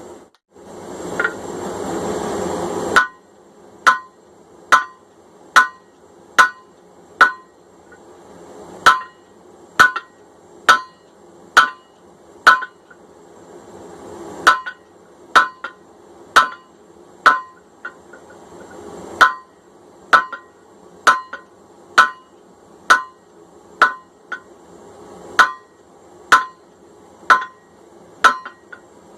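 Hand hammer blows on hot 1045 steel over an anvil horn: sharp ringing strikes, about one a second, in runs with short pauses. They follow a steady rushing noise that lasts about three seconds.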